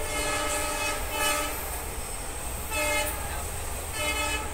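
Train horn sounded in blasts, a longer one at the start, then two short ones about 3 and 4 seconds in, over the steady low rumble of the moving train's carriage.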